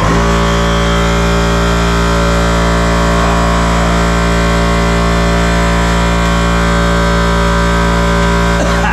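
A machine's motor starts abruptly and runs with a loud, steady hum that does not change in pitch.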